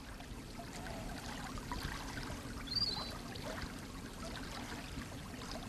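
Faint, steady sound of flowing river water, with a brief high chirp about halfway through.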